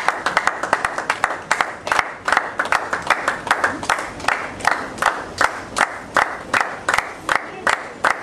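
A crowd clapping together in a steady rhythm, about three claps a second, over crowd chatter.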